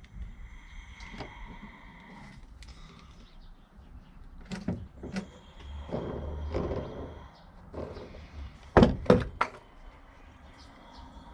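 A series of knocks and clatter: a few separate knocks, a stretch of scraping and handling noise, then three loud sharp knocks in quick succession near the end.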